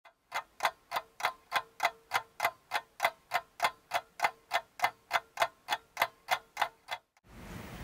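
Even, regular ticking, about three sharp ticks a second, over a faint steady tone. The ticking stops about a second before the end, leaving a faint hiss.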